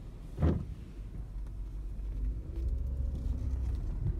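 Low rumble of a pair of CSX GE Evolution-series (GEVO) diesel locomotives moving along the track, growing louder from about halfway in. A brief knock about half a second in is the loudest moment.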